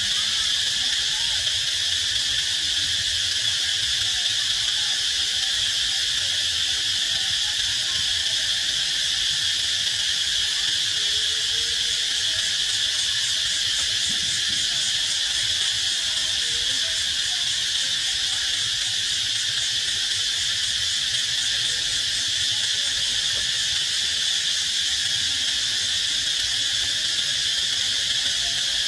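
Steady, continuous drone of a chorus of insects, high-pitched and unbroken.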